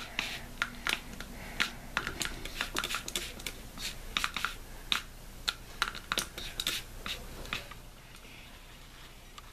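Plastic trigger spray bottle spritzing water in quick, irregular squirts, about two or three a second, stopping about seven and a half seconds in.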